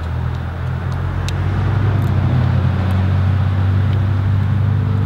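A motor vehicle's engine running steadily while driving, a low even drone with road and air noise over it.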